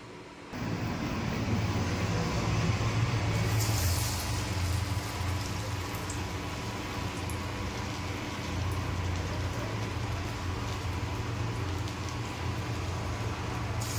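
A steady low hum with an even hiss over it, starting about half a second in, a little louder for the first few seconds.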